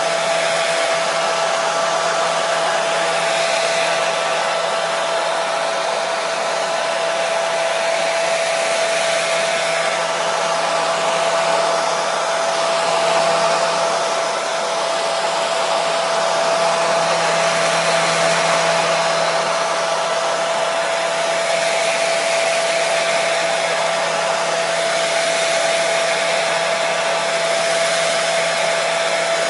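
Hair dryer running steadily: an even rush of blown air with a steady motor whine, played continuously as white noise to settle a baby.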